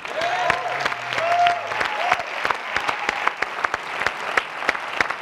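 Audience applauding, a dense, steady patter of handclaps.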